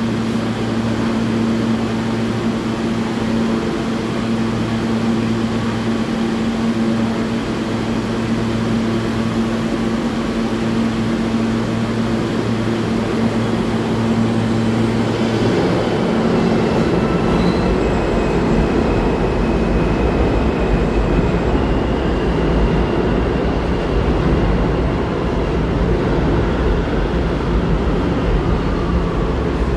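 R160A subway train standing at the platform with a steady electrical hum, then pulling out about halfway through: its traction motors whine in rising steps and the wheels rumble on the rails as it accelerates away into the tunnel.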